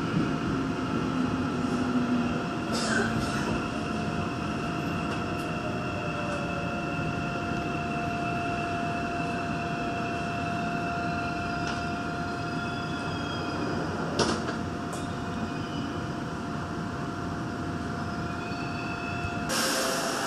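Daegu Metro Line 2 train slowing into a station and stopping, heard from inside the car: a steady rumble with a held whine and a few clicks. The whine stops near the end and a short hiss of air follows as the train comes to rest.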